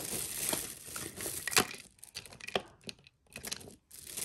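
Packaging crinkling and rustling as it is handled and opened, with a few sharp clicks and short pauses.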